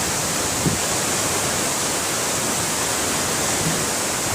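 A tall, heavy waterfall crashing down, a steady, unbroken rush of falling water.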